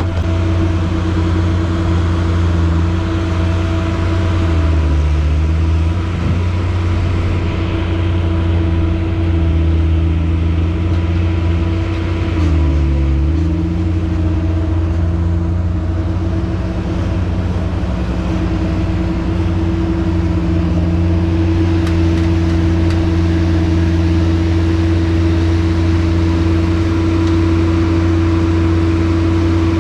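Skid steer loader's engine running steadily at working speed. Its pitch briefly sags about three times in the first half, as the engine takes load.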